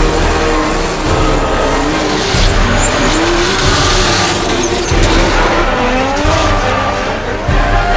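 Drift cars sliding in tandem, their engines revving up and down in pitch over the noise of skidding, squealing tyres.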